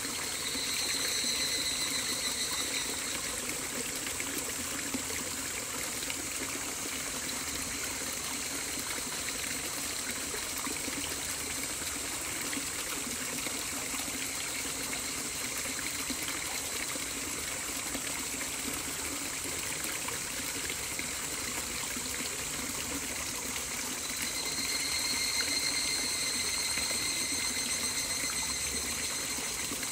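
Running water, a steady rushing trickle like a stream, with a high ringing tone coming in twice over it.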